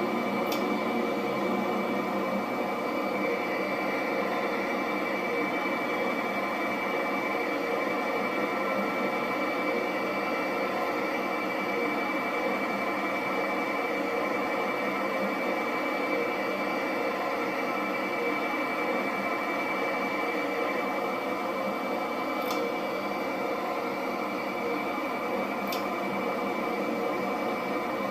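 Jet engine running steadily, with a constant high whine over the hum and a few faint clicks.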